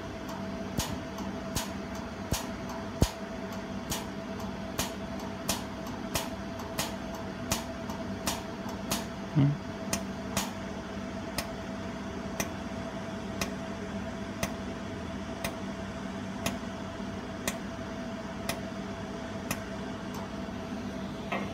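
Jewelry laser welding machine firing its laser pulse after pulse, each pulse a short sharp tick: about two a second at first, then about one a second. A steady machine hum runs underneath.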